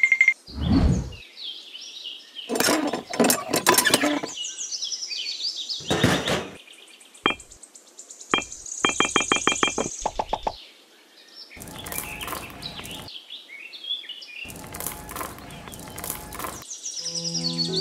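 A string of edited cartoon sound effects: a falling swoop about half a second in, bursts of rattling clicks, a quick even run of clicks around nine seconds in, and high chirp-like glides.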